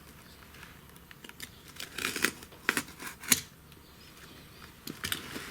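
Short, sharp crunching snaps from stiff, aged carpet backing being worked, clustered about two to three seconds in with a couple more near the end; the backing has gone hard like wood with age.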